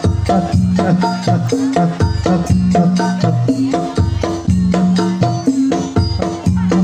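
Jaran kepang accompaniment music: drums and pitched percussion play a fast, repeating melodic pattern of short stepped notes that never stops.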